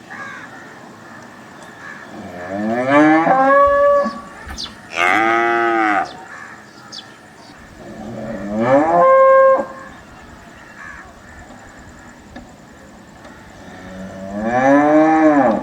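Cattle mooing: four long, loud moos. Some sweep up in pitch and then hold level; others rise and fall in an arch.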